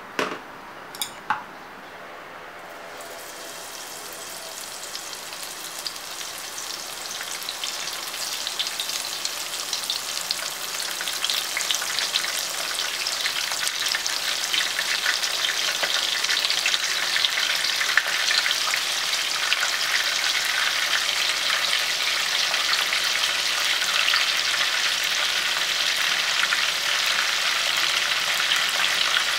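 Breadcrumb-coated oyster mushrooms deep-frying in a pot of hot oil: a dense crackling sizzle that builds over the first ten seconds or so and then holds steady. Two short knocks come right at the start.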